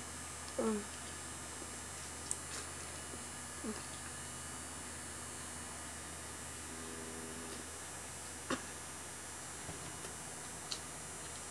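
Electric fan running with a steady, noisy hum. About half a second in there is a short falling squeak, and a few faint sharp clicks follow later.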